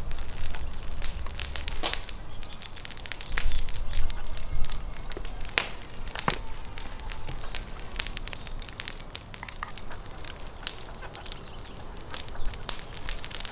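Close handling of raw whole chickens as they are trussed onto a spit with wire: scattered wet clicks and crackles, with a low rumble underneath.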